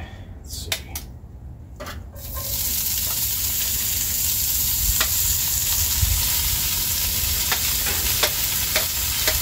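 Cooked chicken frying in hot oil in a Dutch oven: a loud, steady sizzle breaks out about two seconds in and keeps on, with a few knocks and clicks of a utensil stirring against the pot.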